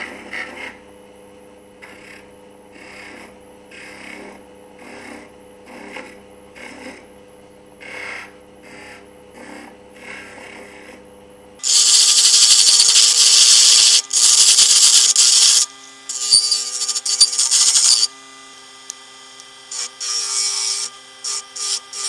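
Small motor of a CNC007 mini lathe humming steadily while black alder wood is worked on the spinning piece. First come light scraping strokes about once a second. From about halfway there are much louder stretches of rasping, each a second or two long, stopping and starting, then quicker short strokes near the end.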